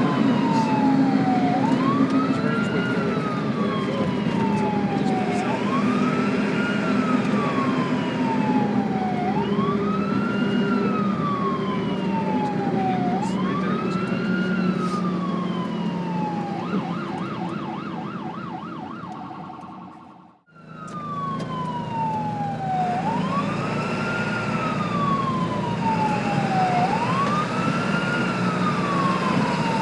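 Ambulance siren sounding a wail that rises quickly and falls slowly, about once every four seconds, over a steady low rumble. A little past halfway it briefly switches to a fast warble and fades away, then the same wail cuts back in.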